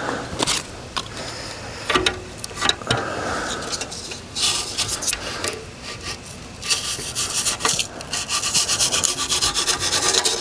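A fillet knife sawing and scraping through cured expanding spray foam, cutting the excess flush off a metal treestand rail. It goes in rapid, uneven rasping strokes.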